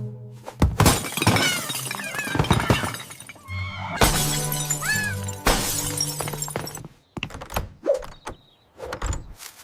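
Dramatic background music with three loud crashes, about a second in, at four seconds and at five and a half seconds, each dying away over a second or so.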